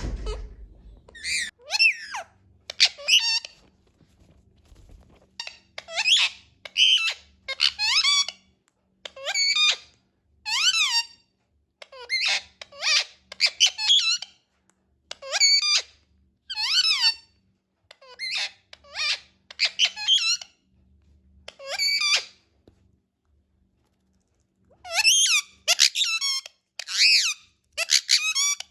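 Indian ringneck parakeet calling: a long series of short, high, squeaky calls, many sweeping down in pitch, with brief pauses between them.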